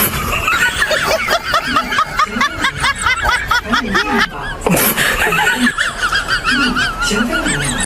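Laughter: rapid, high giggling and snickering laughs that go on throughout, with a short break and a sudden loud restart about halfway through.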